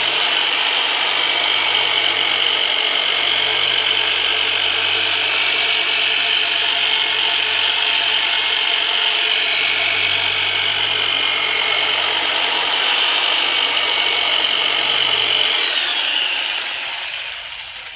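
Turbonator electric massage tool running with a steady high buzz, then switched off about sixteen seconds in, its pitch falling as it winds down.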